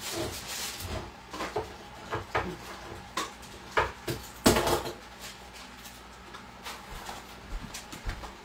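Kitchen clatter: scattered knocks and clinks of dishes and cupboards being handled, about a dozen separate strikes, the loudest one about halfway through.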